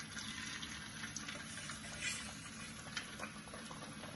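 Thenga vada, discs of coarse rice-and-coconut dough, sizzling as they fry in hot coconut oil over a high flame: a steady hiss with scattered crackles.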